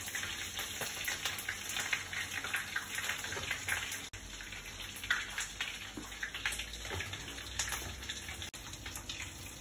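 Food sizzling on the stove while a spatula scrapes and knocks in a wok, scooping out fried rice; a steady hiss broken by many small scrapes and ticks.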